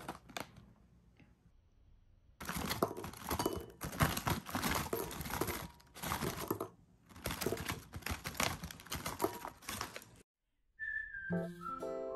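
Plastic snack bag of Loacker wafers crinkling and rustling as it is handled and the wafers are shaken out into a glass bowl, in two long stretches. Near the end, after a brief silence, acoustic guitar background music begins.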